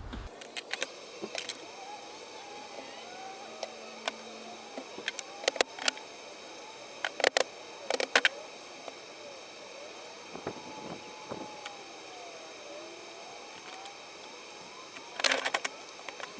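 Scattered sharp clicks and taps of hand work on driveshaft parts, with a quick cluster of clicks near the end.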